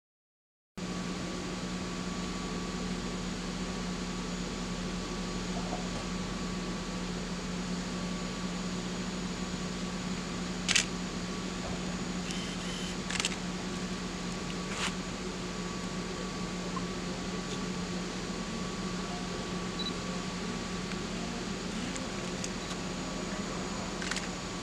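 Steady low hum from a standing South Shore Line electric passenger train's auxiliary equipment, with a few sharp clicks about 11, 13 and 15 seconds in. The sound cuts in about a second in, after silence.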